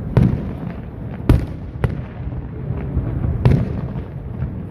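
Fireworks going off: four sharp loud bangs, the biggest a little over a second in, with fainter cracks and pops between them, over a steady low rumble.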